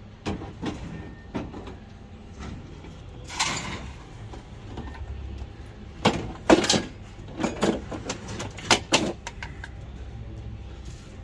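Scrap metal and parts knocking and clanking as they are pulled out of the back of a van and handled, with a scrape about three and a half seconds in and a run of sharp knocks in the second half.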